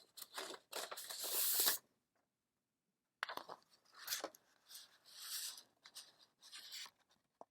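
A sheet of paper rustling and sliding against the typewriter. There is one spell of about a second and a half near the start, then a longer, broken run of rustles from about three seconds in.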